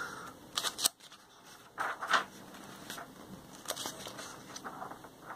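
Magazine pages being handled and turned: several short paper rustles and crackles, the loudest about two seconds in.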